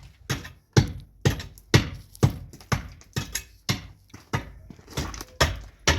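Repeated hammer blows, about two a second, each a sharp knock with a short ring.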